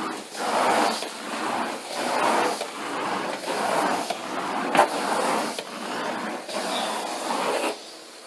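Carpet-cleaning machine worked over carpet in back-and-forth strokes: a hissing, rushing noise that swells and fades about once a second, with a sharp click about halfway through. It drops away sharply near the end.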